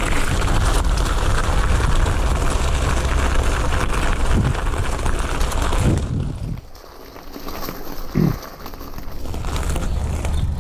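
Wind buffeting an action camera's microphone, with rumble and rattle from moving over a rough dirt trail. The sound drops away for a couple of seconds a little past the middle, then builds back up.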